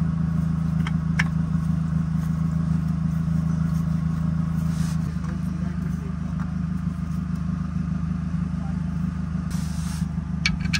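An engine idling steadily, a constant low hum, with a couple of light clicks about a second in.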